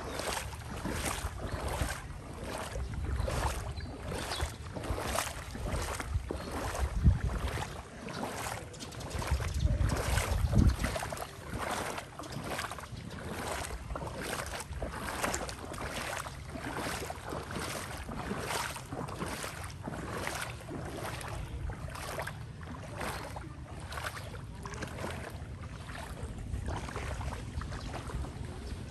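Steady rhythmic splashing in floodwater, a little under two splashes a second, over a low rumble that swells a few times in the first half.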